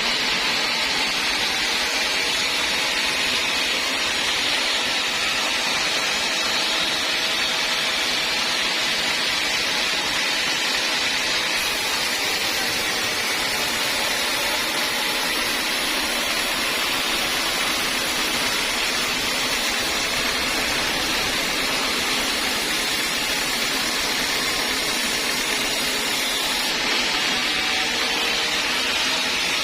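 Sawmill saw running steadily, a constant hissing machine noise with no breaks.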